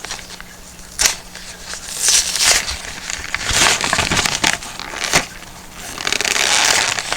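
Stiff plastic pen packaging being crushed, bent and torn open by hand, crinkling in irregular patches with a couple of sharp cracks.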